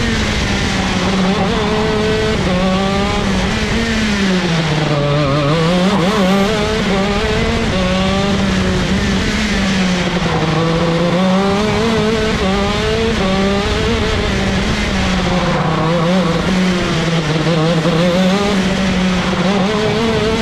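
Vortex ROK Shifter's 125cc two-stroke kart engine running hard on a lap. Its pitch drops three times as it slows into corners, near 5, 11 and 16 seconds, and climbs back each time.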